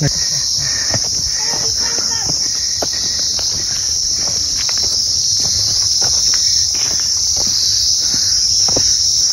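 A steady, high-pitched chorus of insects, shrilling without a break, with footsteps scuffing and crunching on a loose stony trail.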